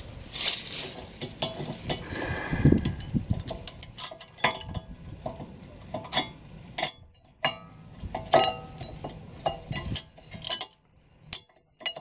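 New rear brake pad on a Toyota Avensis T27 being pushed into the caliper bracket: its steel backing plate clicks and clinks against the metal bracket in a string of short, irregular knocks, with some scraping in the first few seconds.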